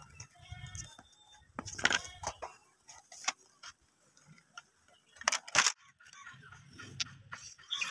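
Painting supplies being handled: scattered clicks, taps and light rattles as a metal tube, a plastic watercolour palette case and a sketchbook are picked up and opened, with two louder clicks about two seconds in and again about five and a half seconds in.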